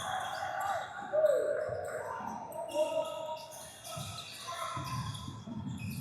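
Basketball game play on a gym court: a ball bouncing and sneakers squeaking on the hardwood, with a loud, short falling squeak about a second in, over crowd chatter.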